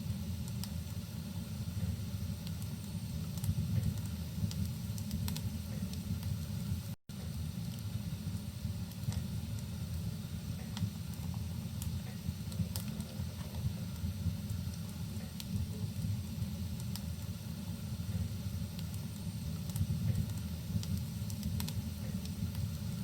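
Wood fire in a fireplace crackling, scattered sharp pops over a steady low rumble, with rain ambience mixed in. The sound cuts out for an instant about seven seconds in.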